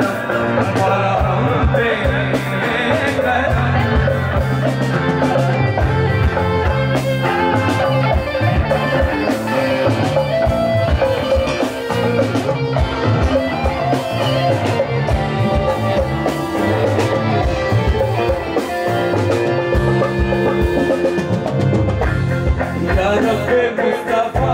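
Live qawwali ensemble playing, with tabla, drum kit, electric guitar and harmonium, driven by a steady beat.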